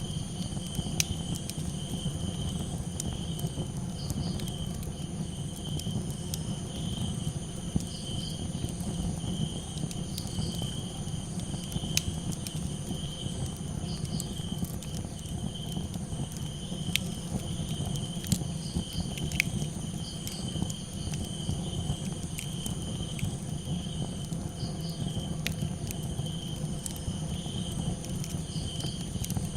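Crickets chirping in a steady pulsing trill, with scattered sharp crackles and pops from a campfire every second or two over a low steady rumble.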